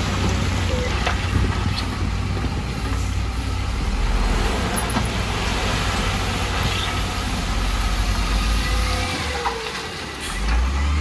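Heavy construction machinery engine running steadily, a deep rumble that drops briefly near the end and then picks up again.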